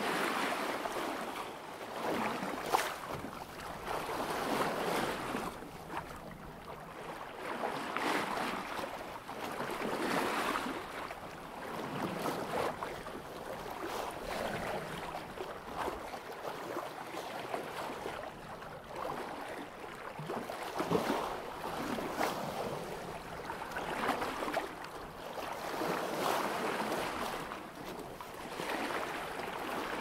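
Water rushing and splashing along the bow of a sailboat making about 3 knots, swelling and easing every two to three seconds, with an occasional sharper slap.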